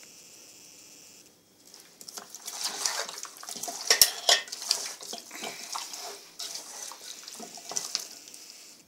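Hands mixing raw, seasoned chicken wings in an enamel pot: irregular wet squelching and slapping of the meat, with sharp knocks against the pot, starting about two seconds in and busiest around four seconds in.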